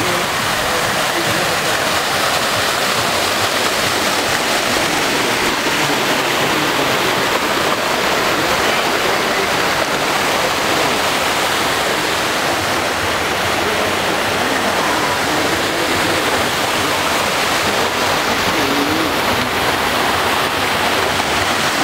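Fountain jets splashing into a stone basin: a steady rush of falling water.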